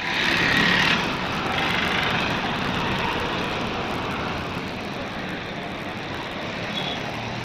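A steady, noisy outdoor rumble and hiss that starts suddenly, is loudest in its first second, then eases slowly.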